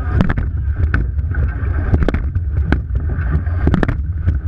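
Wind buffeting a microphone on the bow of a racing eight, with water rushing along the hull and sharp knocks from the oars working in their gates, coming in irregular clusters with each stroke.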